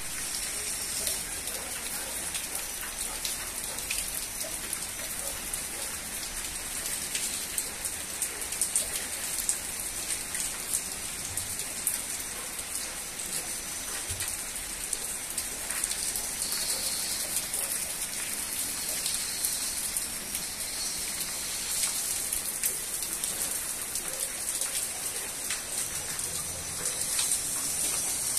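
Heavy rain pouring onto wet paving slabs: a steady hiss of rainfall with many close, sharp drop splashes.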